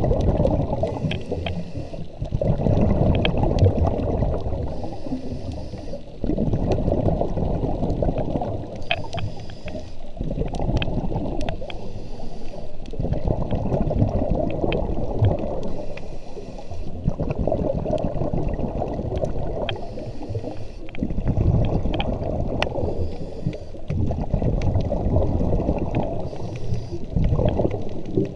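Scuba regulator breathing underwater: a loud bubbling rush of exhaled air for a few seconds, then a short hissing inhale, repeating about every four to five seconds. Scattered sharp clicks run over the top.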